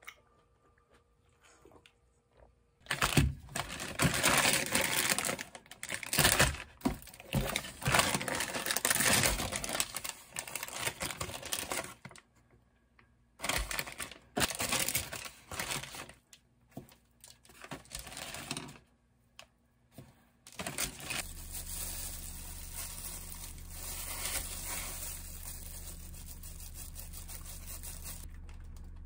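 Plastic food packaging crinkling and tearing in irregular bursts as frozen corn dogs are unwrapped. Later, a steady low hum begins and runs under a few faint handling noises.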